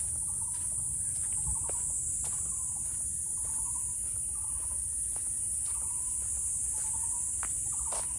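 A steady, high-pitched chorus of insects, with short chirping notes at a lower pitch repeating every second or so and a few faint clicks.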